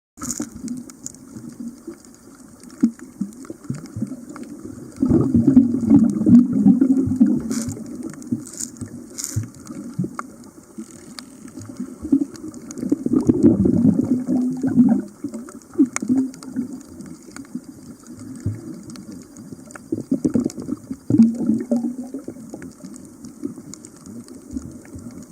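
Muffled water sloshing and gurgling, swelling into loud surges every several seconds.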